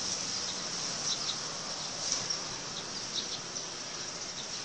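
Outdoor ambience: a steady high hiss with a scatter of short, high chirps, a few per second at most.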